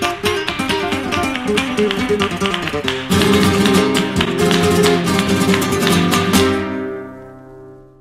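Background music: fast acoustic guitar in a flamenco style, quick strums and plucked notes. It ends on a chord that rings out and fades away from about six and a half seconds in.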